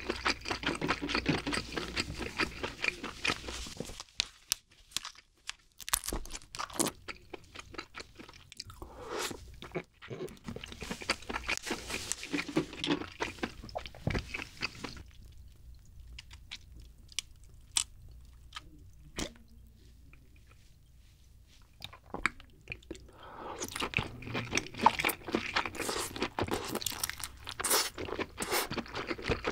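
Close-miked ASMR eating of king crab: chewing of crab leg meat, with crunching and clicking as the shell-on legs are handled and the meat pulled out. A quieter stretch in the middle has only scattered clicks, then the chewing comes back dense near the end.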